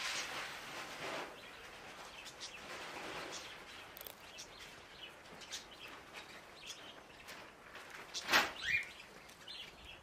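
Outdoor ambience in a snowy goat pen: soft shuffling, scattered faint chirps and ticks, and one sharp knock about eight seconds in followed by a brief rising chirp.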